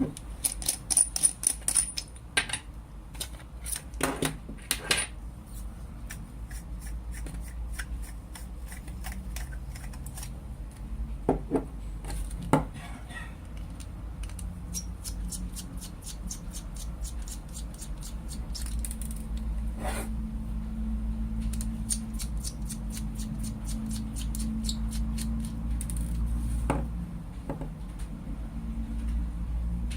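Metal lightsaber hilt parts being handled and taken apart: runs of light rapid clicks and a few louder knocks over a low steady hum.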